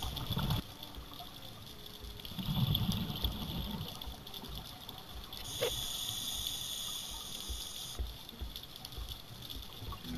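Underwater sound of scuba exhaust bubbles over a steady hiss, with a short low rush of bubbles at the start and a longer one about two and a half seconds in.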